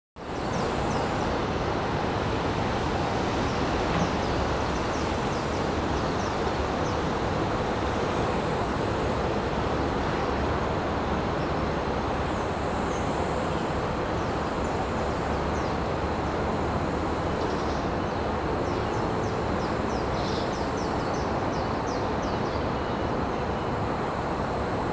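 Steady hum of distant city and highway traffic, with a high insect buzz over it and short high chirps coming in groups now and then.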